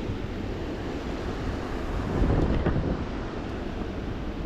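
Wind buffeting the microphone, a rumbling noise that swells louder for a moment about halfway through, with a few faint knocks.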